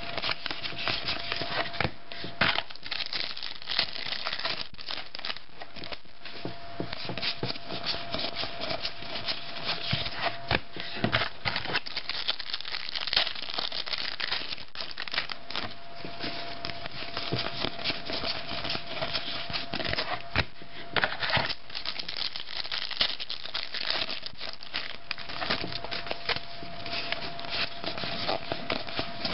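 1997 Score Board NFL Rookies trading cards handled and slid past one another by hand: a steady run of small rubbing, clicking and crinkling sounds. A faint steady hum runs underneath.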